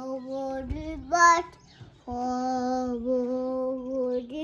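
A toddler's voice singing long, steady held notes without words. About a second in comes a louder note that rises in pitch, then a short pause, then another long held note.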